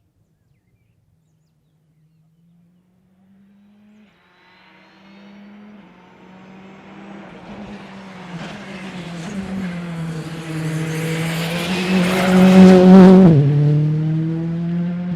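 A rally car comes in from a distance on a closed stage. Its engine note grows steadily louder to a peak about twelve seconds in, then drops sharply in pitch as the car goes by, and it carries on, fading.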